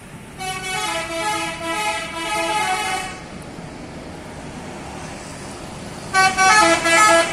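Tour bus's multi-tone 'telolet' musical air horn playing a stepping tune of held notes, in two spells: about three seconds just after the start, then again from about six seconds in. Faint traffic noise lies under it.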